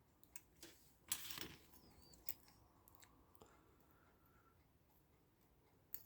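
Small tools handling the balance and hairspring parts of a mechanical alarm clock movement: a few faint sharp clicks and one brief scrape of metal on metal, otherwise near silence.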